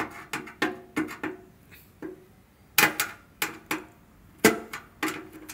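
Irregular metallic clicks and clinks, about a dozen, some ringing briefly, from an air conditioner fan unit's galvanized sheet-metal blower housing being handled and a hex key being worked into the blower wheel's set screw.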